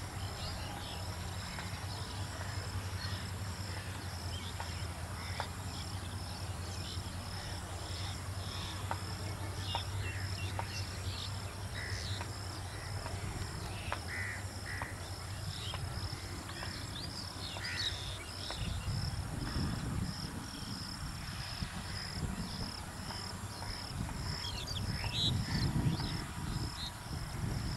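Rural outdoor ambience: scattered bird calls, including crows cawing, over a steady high insect drone and the low steady hum of a distant passing train. From about two-thirds through, an uneven low rumble sets in and grows louder near the end.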